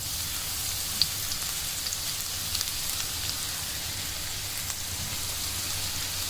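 Garlic sizzling in hot cooking oil in a pan, a steady hiss with many small crackles and one sharper pop about a second in.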